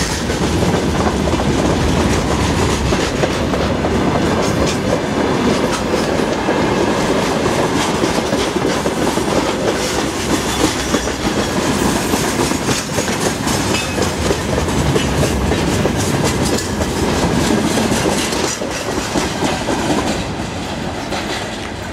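Loaded freight wagons rolling past close by, steel wheels clattering over the rail joints in a continuous clickety-clack over a heavy rumble. The sound starts to fade near the end as the last wagon passes and draws away.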